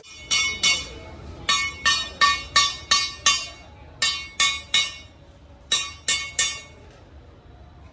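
Hammer blows on sheet metal, each with a ringing clang. There are about seventeen strikes in four uneven runs, the quickest run near the start: panel-beating of car body panels.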